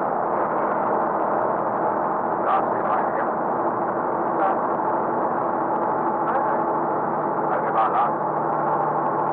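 An old truck's engine running steadily: a dense, even drone with a few short rattles or clicks over it. A lower steady tone joins in about seven seconds in.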